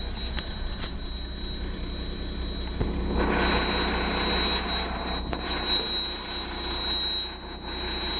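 The M932A2 truck's Cummins six-cylinder turbo diesel running at idle, a steady low rumble under a thin, steady high whine. A louder rushing noise swells in for a few seconds in the middle.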